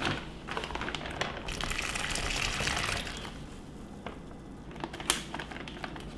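Liquid marinade poured from a stainless steel bowl into a plastic freezer bag of raw beef, then the plastic bag crinkling, with a couple of small clicks, as its zip top is pressed shut.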